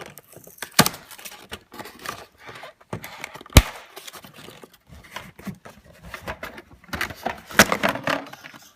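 Hard plastic toy SUV being handled and opened: a scatter of clicks, taps and knocks, with one sharp knock about three and a half seconds in and a busier run of clicks near the end.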